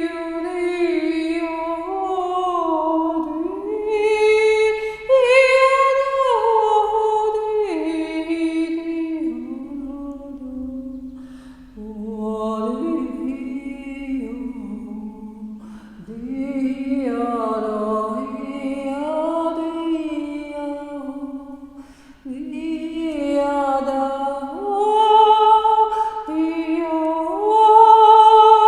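A woman's wordless, improvised singing: long held notes that slide from pitch to pitch, with short breaks for breath. This is the involuntary vocalising through which the singer channels Reiki energy in a healing session.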